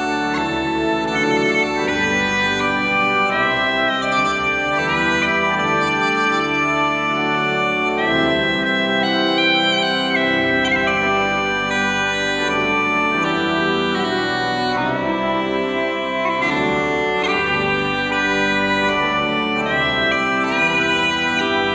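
Uilleann pipes playing a melody on the chanter over the steady sound of the drones, with a pipe organ accompanying.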